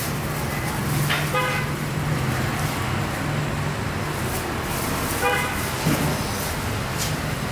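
Passing road traffic with a steady engine hum. A vehicle horn toots briefly twice, once about a second in and again about five seconds in.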